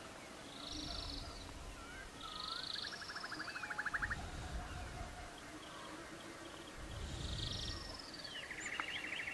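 Nature-sound ambience of several small birds calling: short chirps that glide up and down, and rapid trills, one about three seconds in and another near the end. Underneath are soft low swells about every three seconds.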